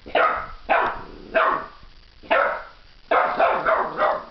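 An 11-week-old boxer puppy barking at a metal artwork it is wary of: single sharp barks about every half second to a second, then a quick run of five or so barks near the end.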